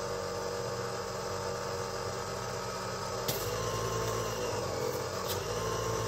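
Compressed air hissing through an air-gun nozzle into a rubber golf grip as it is slid onto the club shaft, over a steady hum. A sharp click comes about three seconds in and a fainter one near the end.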